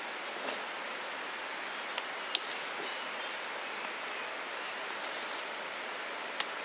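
Leaves and stems rustling as a person pushes through dense undergrowth, over a steady outdoor hiss, with three sharp snaps; the loudest comes about two and a half seconds in.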